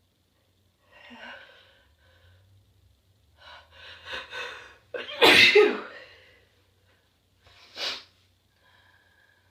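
A person's strong sneeze: a couple of catching, gasping inhales build up, then one loud, forceful sneeze about five seconds in, followed by a short, sharp second burst near eight seconds.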